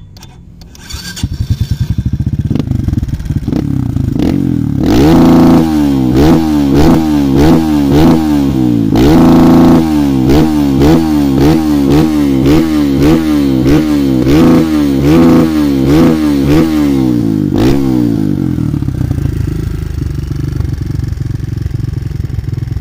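Kawasaki KLX150 dirt bike, a single-cylinder four-stroke taken out to 170cc and fitted with an aftermarket slip-on muffler, starting about a second in and idling. It then takes a run of quick throttle blips, roughly one a second, with one longer held rev in the middle, before settling back to a steady idle.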